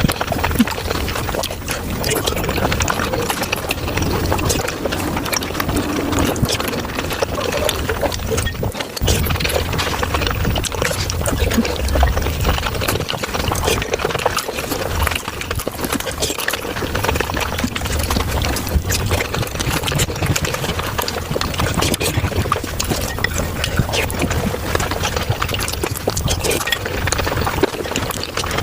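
Chewing and wet mouth sounds of someone eating pork momos, sped up five times into a dense, unbroken stream of quick smacks and clicks.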